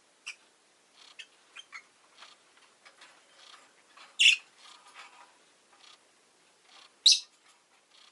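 Rosy-faced lovebird giving sparse, short chirps, with a couple of sharp, much louder calls about four seconds in and again near the end.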